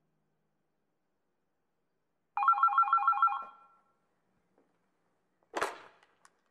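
A telephone rings once: a rapidly pulsing trill about a second long. A couple of seconds later comes a short noisy clatter.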